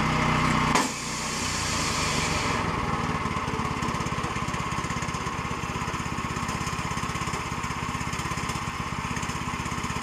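Woodland Mills HM122 portable band sawmill running. About a second in, the sound drops suddenly as the band blade comes off its wheels and hits the blade guard. After that the gas engine keeps running with a steady, rapid pulsing.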